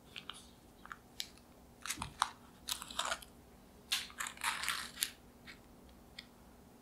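Crackling of a torn blueberry muffin's crisp crust and rustling of its paper baking cup as it is handled, in irregular bursts, with a soft knock about two seconds in.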